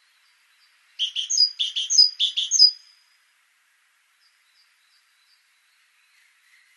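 Great tit singing: four quick repeated two-note phrases over about two seconds, followed by a few faint short high calls.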